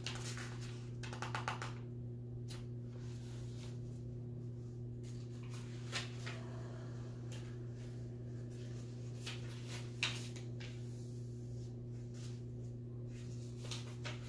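A low, steady electrical hum with a few soft clicks and taps of handling noise scattered over it, a small cluster about a second in and single ones later.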